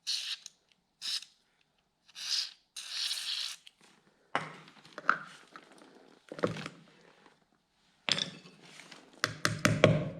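Hand work on a lawnmower wheel during a bearing swap: a run of short scraping, rustling bursts with a few knocks. An even, tapping music beat begins near the end.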